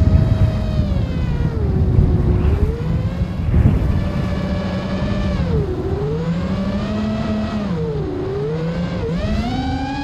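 Emax Hawk 5-inch FPV quadcopter's brushless motors and propellers whining, the pitch rising and falling with the throttle, over a heavy wind rush on the onboard camera's microphone. Near the end the pitch climbs steeply.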